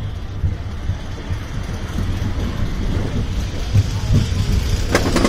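Steel Force hyper coaster train rolling along its steel track with a low, rough rumble. Near the end, a rapid run of clacks begins as the train reaches the lift hill and the lift chain engages.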